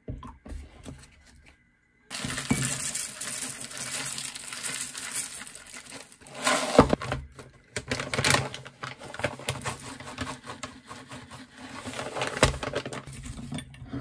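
Milk poured from a carton into a ceramic bowl, softly. About two seconds in, dry cereal (cornflakes, then small cereal marshmallows) is poured from a pouch into the bowl: a long, steady clattering rattle of pieces hitting the ceramic, with a few louder spills.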